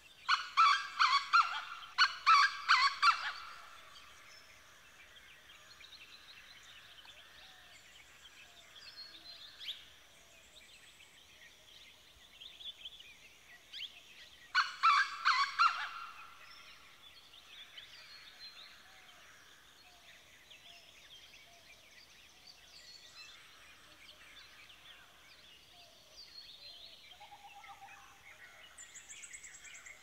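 Early-morning birdsong: many small birds chirping steadily. One bird breaks in with loud calls made of a fast string of notes, twice in the first few seconds and once about halfway through.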